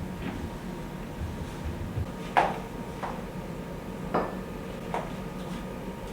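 Four light knocks and clatters of household items being handled and set down during bathroom cleaning, the loudest about two and a half seconds in, over a steady low hum.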